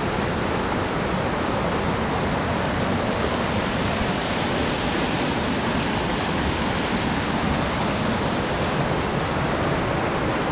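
A waterfall: water pouring steadily down rocks in a loud, even rush.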